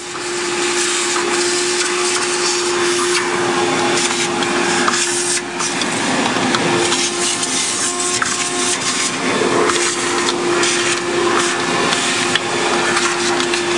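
Shop vacuum running steadily, its corrugated hose sucking air and debris around the top of the engine. A constant whine sits over the rushing air, and the rush shifts as the nozzle moves.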